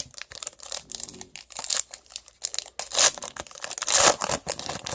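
Foil wrapper of a Panini Contenders football card pack being torn open and crinkled: a quick run of sharp crackles, loudest about three and four seconds in.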